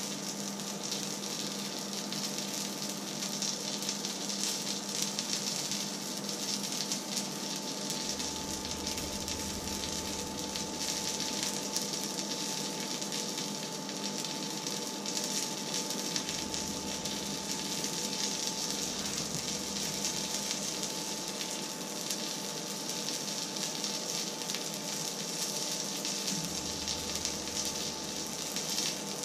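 Thin film of oil sizzling faintly in an empty frying pan heating on an electric hob, a steady hiss over a steady hum. A low hum comes on about eight seconds in, stops after about eight seconds, and comes back on near the end.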